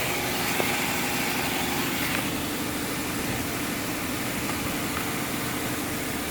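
A car engine idling with a steady, even hum.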